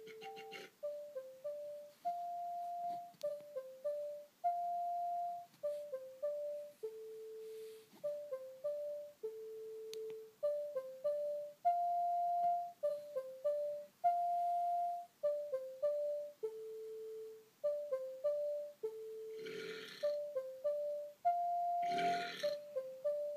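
A dopplerpad playing a repeating melody of short, clear single notes, with a few longer held notes between quick runs. Near the end a person burps twice in time with the tune.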